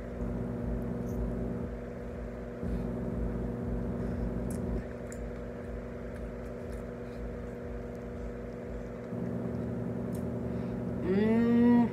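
Steady low hum with a deeper, uneven rumble underneath, and faint chewing clicks as a cheeseburger is eaten. Near the end comes a short hummed "mm" that rises in pitch.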